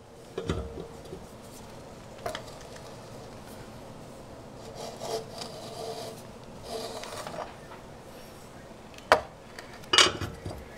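Hand lug wrench fitted onto a car wheel's lug nuts and worked to loosen them: a few sharp metallic knocks with rubbing and scraping in between.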